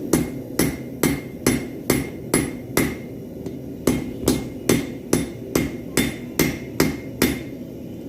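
Five-pound hammer striking steel on a Harbor Freight anvil, blows about two a second with a short ring after each: seven strikes, a pause of about a second, then nine more.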